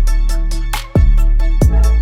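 Background music with a heavy electronic beat and deep, booming bass drum hits, which cuts off abruptly at the end.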